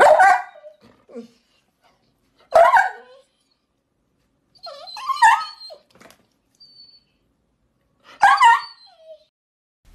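Yellow Labrador whimpering and yipping in four short, high cries spaced about two and a half seconds apart, as a cat chews on its ear.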